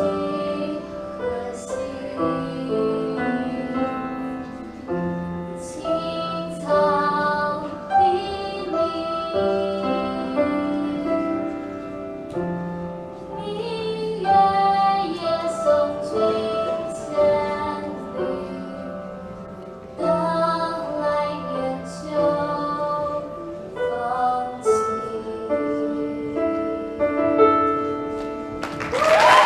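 A female voice singing a slow ballad with piano accompaniment.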